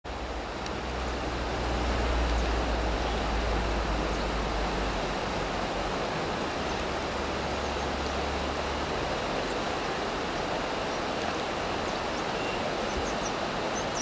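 Steady rush of a fast river running over a rocky bed, an even hiss with no let-up, with a low rumble underneath that fades out about nine seconds in.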